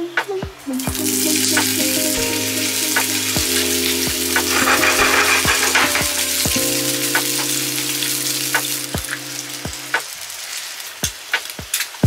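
Sausage pieces sizzling in hot oil in a nonstick frying pan, stirred with a spatula that clicks against the pan now and then. The sizzle starts about a second in and dies down near the end.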